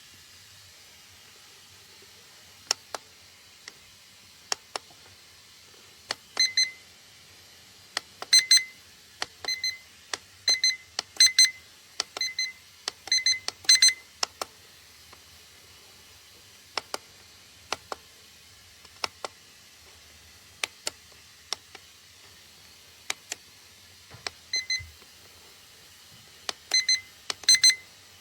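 A Netzu digital alarm clock beeping in short, high-pitched beeps, some single and some in quick pairs, in irregular runs, mixed with sharp clicks of its buttons being pressed. This is typical of cycling through its settings.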